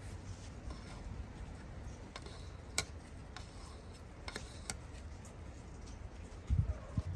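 Wind rumbling on the microphone. A few sharp light clicks come through it in the middle, and two low thumps near the end, the loudest sounds here.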